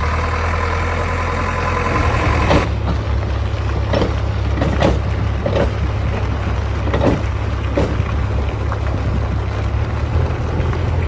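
Heavy diesel machinery engine running steadily, with a whine that stops about two and a half seconds in, followed by a series of short knocks and clunks about a second apart.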